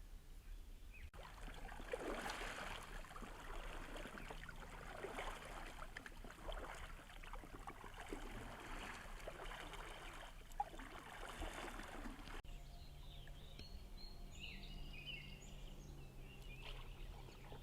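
Water splashing and trickling on a river, with irregular uneven splashes. After a cut about twelve seconds in, small birds chirp over a faint low hum.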